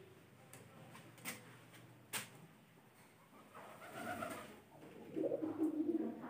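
A dove cooing in low, held phrases from a little past halfway, after two short sharp clicks.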